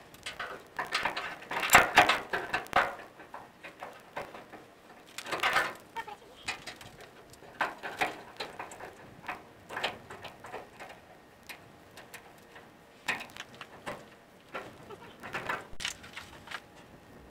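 Hand tools clinking and knocking against metal suspension parts, in irregular bursts of short clanks.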